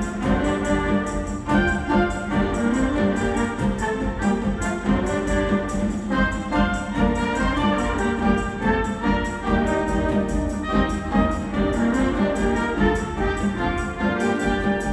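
A mixed ensemble of winds, strings and timpani playing a live orchestral arrangement, with sustained chords over a steady rhythmic pulse.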